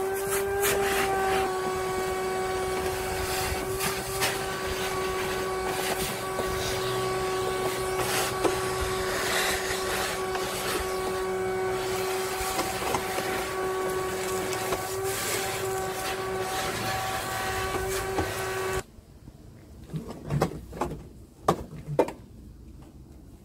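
Vacuum cleaner running with a steady, high-pitched hum as its hose works in a vehicle footwell, switched off abruptly about nineteen seconds in, followed by a few light knocks.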